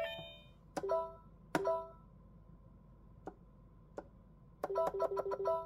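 Electronic beeps from a VTech Professor Schreibfix learning computer: a short jingle ends, then two key presses each give a click and a short beep, and near the end a quick run of clicks and beeps comes about seven a second as a new game starts.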